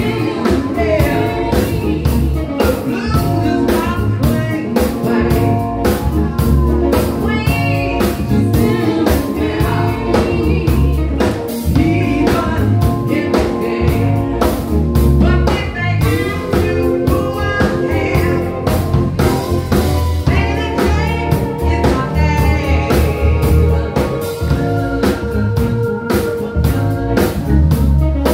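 Live band playing a song with a man and a woman singing, over drum kit, keyboard and electric guitar with a steady beat.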